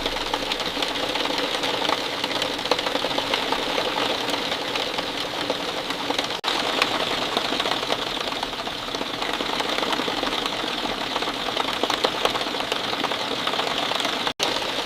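Steady rain falling, a dense patter of countless drops, cut to silence for an instant twice.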